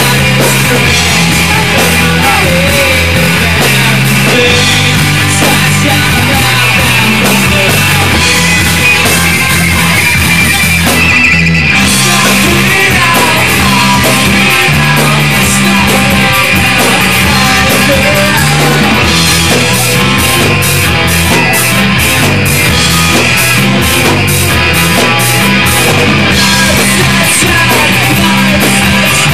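Rock band playing live and loud: electric guitars, bass and drums. There is a brief break a little past ten seconds in, and in the second half the drums beat out a quick, even rhythm.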